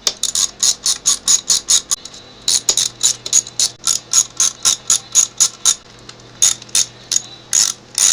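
Hand ratchet clicking as it runs clutch spring bolts down snug, about five clicks a second in runs, with short pauses about two and six seconds in.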